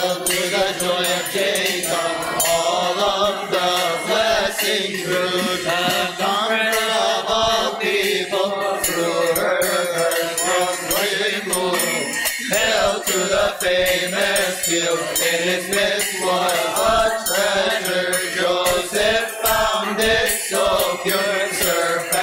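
A Coptic hymn to the Virgin Mary chanted in Arabic, the verses sung continuously over a steady, light metallic beat of small percussion.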